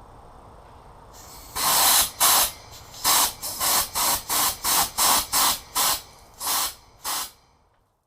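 About a dozen short, sharp bursts of air and water spraying out of a car heater core in quick succession, roughly three a second. They start about a second and a half in and stop abruptly near the end.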